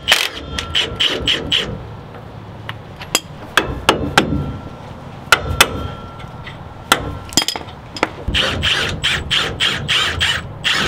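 Cordless impact wrench with a 21 mm socket hammering in short bursts on the rear shock's lower mount bolt, once at the start and again about 8 seconds in. Between the bursts come scattered metallic clinks.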